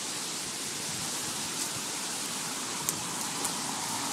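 Steady hard rain, with a few sharp ticks of drops hitting close by.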